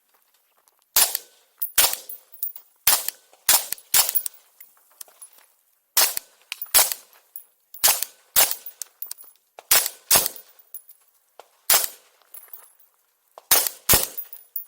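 Rapid gunfire on a shooting-match stage: about fourteen shots, mostly fired in quick pairs about half a second apart, with brief pauses between pairs as the shooter moves from target to target.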